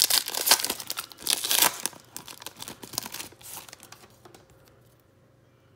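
Foil wrapper of a Donruss Optic basketball card pack being torn open and crinkled, loud and dense for the first two seconds, then thinning to a few lighter crackles by about three and a half seconds in.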